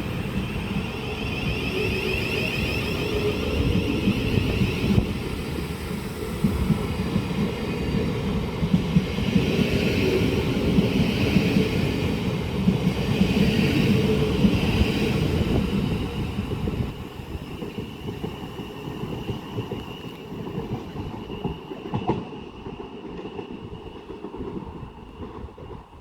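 Thameslink Class 700 electric train pulling out of the station: electric whine over the rumble of wheels on rails, loud at first and then falling away after about sixteen seconds as the train leaves.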